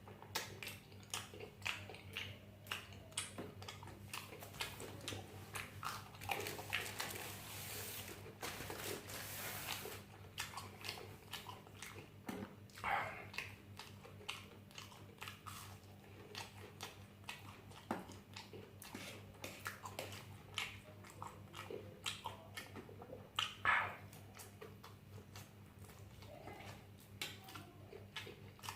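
Close-up mouth sounds of sausages being bitten and chewed: many small wet clicks and smacks, with a hissing noise about seven to ten seconds in.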